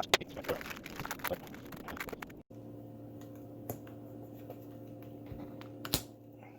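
Small rapid clicks and crinkling of hands handling taped wax paper. After an abrupt cut, a steady low hum with a couple of isolated clicks.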